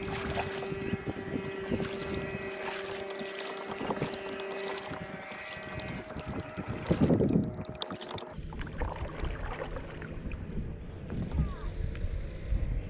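Kayak paddle working the water, with splashes, knocks against the hull and wind on the microphone. A steady hum sounds through the first several seconds.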